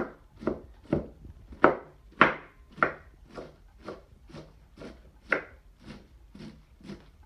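A large kitchen knife chopping freshly picked cabbage on a wooden tabletop, in a steady rhythm of about two knocks a second.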